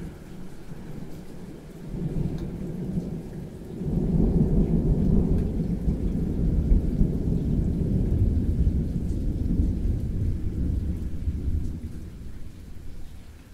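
A long roll of thunder that builds about two seconds in, swells to a deep, loud rumble a couple of seconds later and rumbles on before fading near the end, over steady rain.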